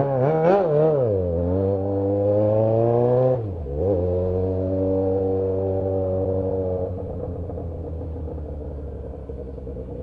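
Yamaha XJ6's inline-four engine running on an open exhaust pipe with no muffler. It is blipped twice, then pulled up through the revs, and after a brief drop in revs about three and a half seconds in it settles into a steady cruise.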